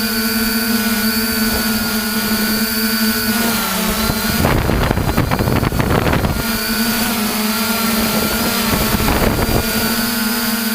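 Multirotor drone's electric motors and propellers humming steadily, with a rough rush of wind on the microphone twice, a longer burst about four seconds in and a short one near the end.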